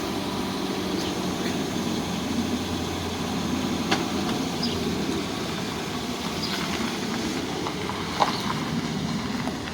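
Steady low outdoor rumble, like a vehicle engine running, with a faint hum and a couple of light clicks about four and eight seconds in.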